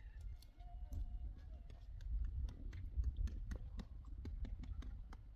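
Footsteps crunching and clicking irregularly on loose stones and gravel, with a low wind rumble on the microphone.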